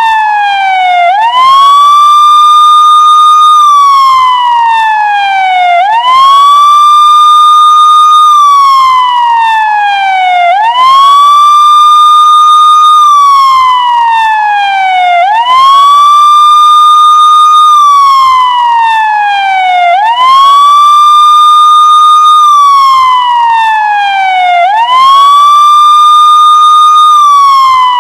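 Police siren wailing in a slow repeating cycle. The pitch sweeps up quickly, holds its high note for about two seconds, then slides down slowly. A new cycle starts about every four to five seconds, six times over.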